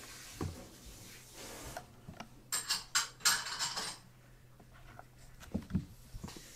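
Two kittens play-fighting on a floor mat: soft thumps of paws and bodies landing, and a burst of crisp scratching and rustling about two and a half seconds in as they scrabble and wrestle.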